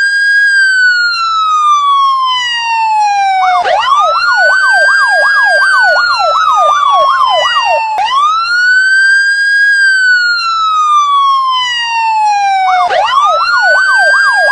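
Loud electronic police siren: a slow rising-and-falling wail, with a fast yelp sweeping up and down over it from about three and a half seconds in until about eight seconds, and again near the end.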